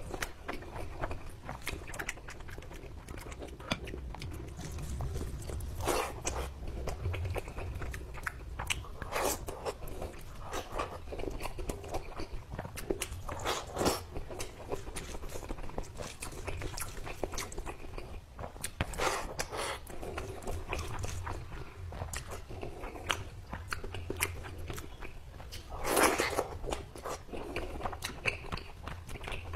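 Close-miked eating sounds: a person chewing mouthfuls of rice and chicken curry eaten by hand, with frequent irregular wet mouth clicks and squelches. The loudest burst comes near the end.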